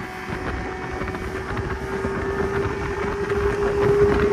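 2004 Yamaha 200 hp HPDI two-stroke outboard running at speed, its steady whine rising slowly in pitch and getting louder, with wind buffeting the microphone.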